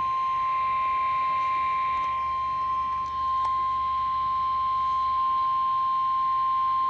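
NOAA Weather Radio 1050 Hz warning alarm tone: one steady, unbroken beep that signals a warning message is about to be read.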